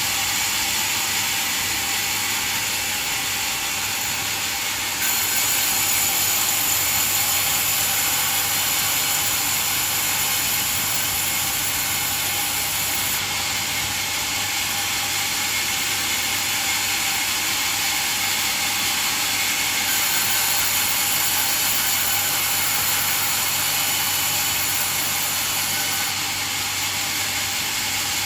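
Band sawmill running and sawing a coconut log, a steady, high, noisy whir of the blade through the wood that shifts abruptly in level a few times.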